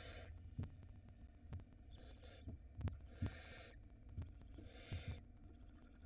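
Barn owl nestlings giving their hissing, snore-like begging calls: about four rasping bursts, each about half a second long, every second or so. Scattered light knocks come from the owls shifting on the nest-box floor.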